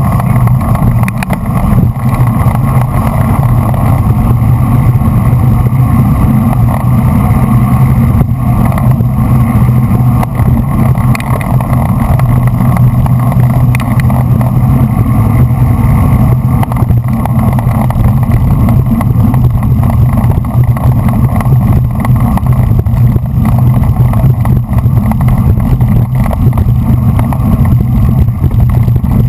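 Loud, steady wind rumble buffeting a bicycle-mounted action camera's microphone while riding in a bunch of road racers.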